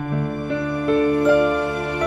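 Instrumental introduction of a slow, tender ballad: soft sustained notes step through a melody, a new one about every half second, over a held low bass note.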